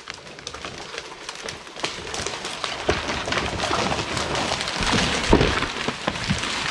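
A felled tree going over: a rush of swishing branches and cracking wood that builds over a few seconds, with heavy thuds about five seconds in as it comes down.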